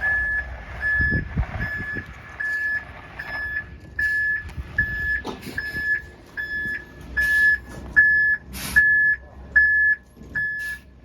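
Truck's reversing alarm beeping a steady single tone a little more than once a second over the low running of its diesel engine, as a concrete truck backs up for the pour. A few short bursts of hiss come through.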